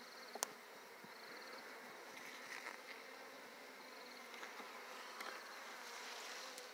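Honey bees buzzing around an open hive, a faint steady hum, with one sharp click about half a second in.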